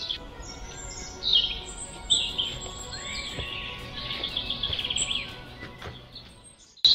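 Songbirds singing in woodland: scattered chirps, a rising whistle, and a rapid trill about four to five seconds in, over soft background music.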